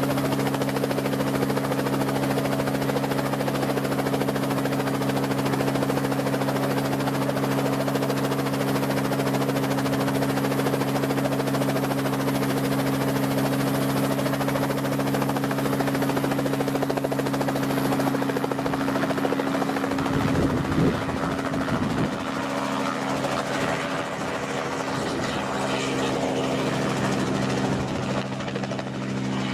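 Robinson R44 helicopter running steadily on the ground with its rotors turning, a constant engine and rotor hum, while its spray tank is reloaded. About two-thirds of the way through the sound shifts and wavers in pitch, then settles again slightly quieter as the helicopter lifts off and flies low away.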